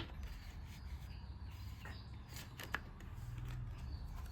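Album contents, the CD and its packaging, being handled by hand: light rubbing and rustling, with a sharp click at the start and another near three seconds in.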